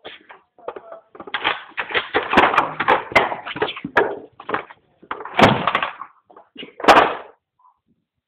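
Dog working at a plastic Dog Casino puzzle toy, the hard plastic board and its drawers clattering and knocking against the floor in irregular bursts, with a few sharp knocks.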